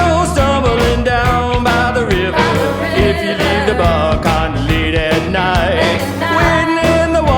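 Country-rock band music with a steady drum beat and a lead line of bending, sliding notes over bass and rhythm instruments, in an instrumental break.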